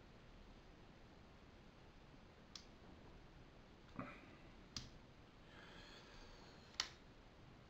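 Sanrenmu 910+ folding knife clicking four times as the blade and lock are worked, the last click the loudest, while the lock is being checked.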